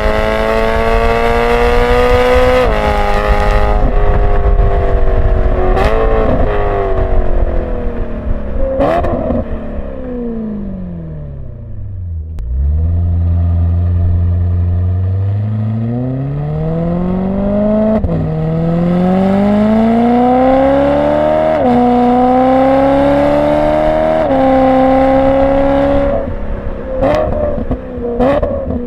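BMW E92 M3's V8 through a Borla ATAK exhaust without venturis, heard from a microphone on the car. It accelerates hard, its pitch climbing and dropping sharply at each upshift. About ten seconds in the revs fall away to a low drone, then the engine pulls up through the gears again, with a few sharp cracks around the shifts.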